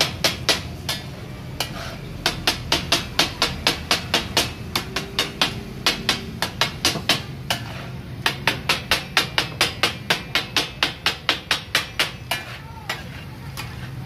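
Two flat steel spatulas striking rapidly on a large iron tawa griddle as brain masala is chopped taka-tak style. The clanging comes at about four strikes a second in runs with a few short pauses, over a low steady hum.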